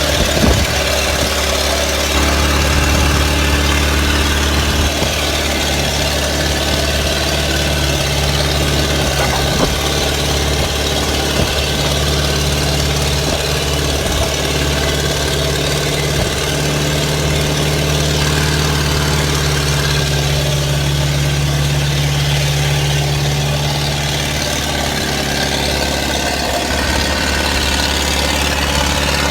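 Heavy diesel engine running steadily at low revs, with a deep hum, a slight rise in pitch for a while near the middle, and a few short knocks.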